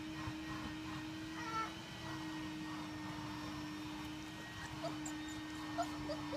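Young Caucasian Shepherd puppies making small whines and squeaks: one short whine about a second and a half in and several brief squeaks near the end, over a steady low hum.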